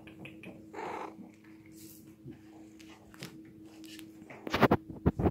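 A kitten gives a brief cry about a second in, among light ticks and scuffs, then a run of loud, close thumps comes near the end.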